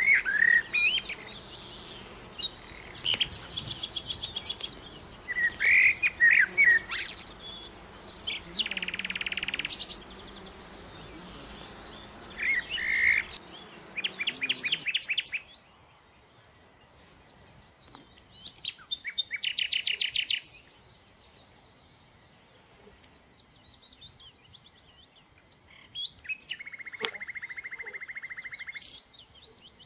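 Songbird singing: varied chirps, whistles and rapid trills in separate phrases with short pauses between them. About halfway through, the steady background hiss drops away.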